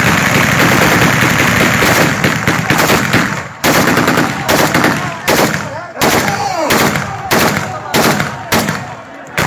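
Kalashnikov-type assault rifle firing: a sustained automatic burst for about the first three and a half seconds, then single shots roughly every two-thirds of a second.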